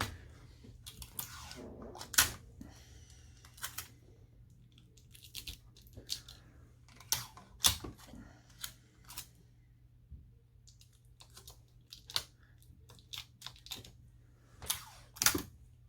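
Irregular small clicks, taps and crinkles of hand work on an opened smartphone while its components are being covered, with a few louder sharp clicks among them.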